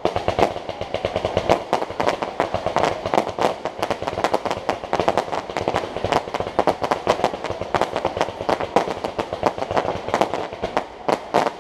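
Fireworks display: a dense, continuous barrage of bangs and crackles, many reports a second, with no break.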